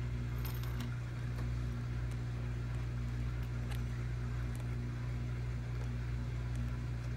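Steady low machine hum with a constant pitch, and a few faint light clicks from a small metal chain being handled.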